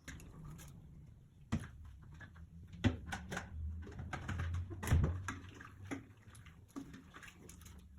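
Irregular knocks and clicks of kitchen handling, the loudest about one and a half, three and five seconds in, over a steady low hum.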